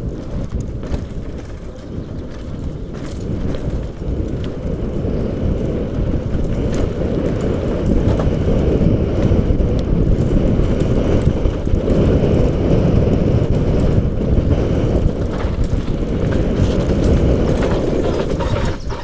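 Wind buffeting the microphone over the rumble and rattle of mountain bike tyres and frame on a dirt trail at speed, louder from about eight seconds in.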